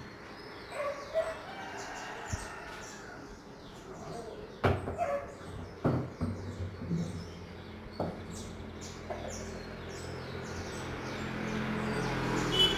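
A few sharp knocks and clatters, as of a metal pot being handled, with faint bird chirps behind them; a low hum grows louder near the end.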